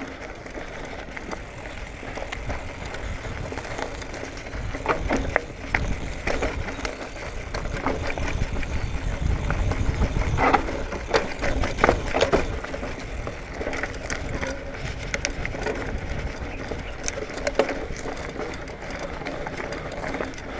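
2019 Marin Bobcat Trail 5 hardtail mountain bike rolling down a dirt singletrack: steady tyre noise on dirt and leaves with frequent short knocks and rattles from the bike over bumps. A low rumble of wind on the microphone builds around the middle as the bike gathers speed.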